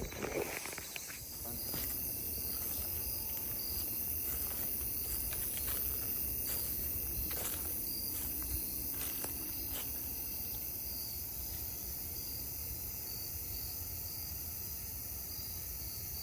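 Insects chirping in a steady outdoor chorus, with a low rumble underneath that comes up about two seconds in.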